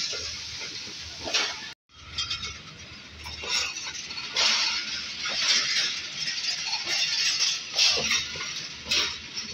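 Passenger coaches of a departing train rolling slowly past, their wheels clattering and clinking over the rail joints with repeated metallic clanks. The sound cuts out briefly about two seconds in.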